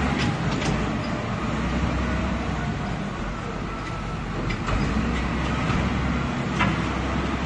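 Wheel loader's diesel engine running steadily, with a few sharp clanks as the lowered steel bucket scrapes through dirt and rubbish.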